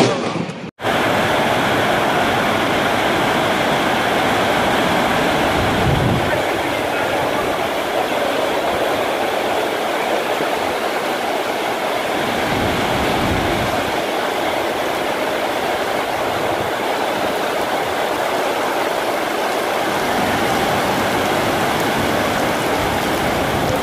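Heavy downpour: a steady, dense hiss of rain, with a couple of brief low rumbles about six and thirteen seconds in.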